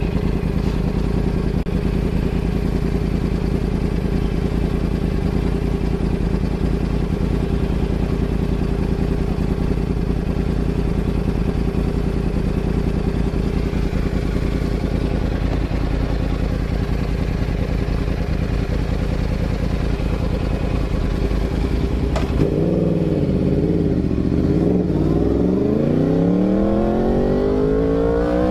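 Yamaha R1's inline-four engine idling steadily at a standstill. About 22 seconds in it pulls away, the engine note rising steeply as the bike accelerates.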